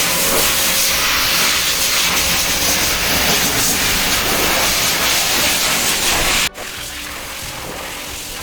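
Shower spray of water hissing steadily during a dog's bath; about three-quarters of the way through it drops abruptly to a quieter hiss.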